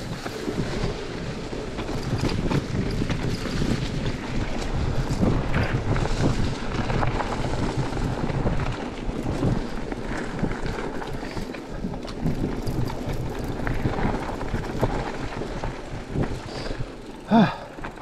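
Wind buffeting the microphone of a chest-mounted action camera as a Cube Stereo Hybrid e-mountain bike rolls down a trail over leaves, dirt and gravel, with tyre rumble and frequent rattles and knocks from the bike. A brief, sharper, louder sound comes near the end.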